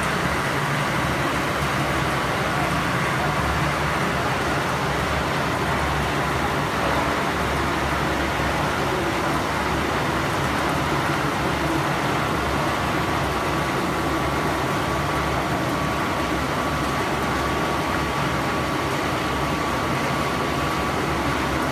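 PP/PE film squeezing and drying machine running steadily under load, pressing film into granules: a loud, even mechanical noise with a faint steady high whine.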